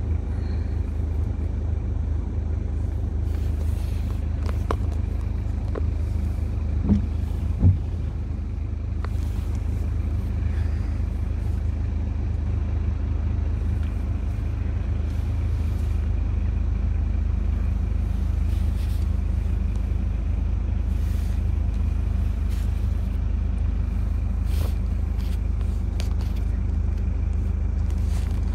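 A car engine idling, heard from inside the cabin as a steady low rumble. Two brief knocks sound close together about seven seconds in.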